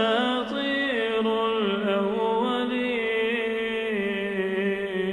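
A man chanting Quranic recitation in melodic tajwid style. He draws out the word 'asatir' in long, ornamented held notes that step gently up and down.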